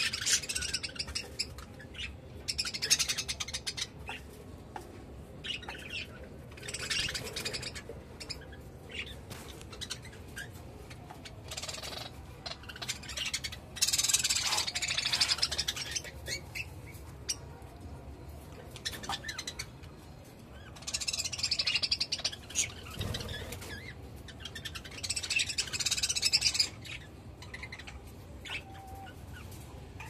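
Budgerigars chattering and chirping in bursts of a second or two, with quieter stretches between.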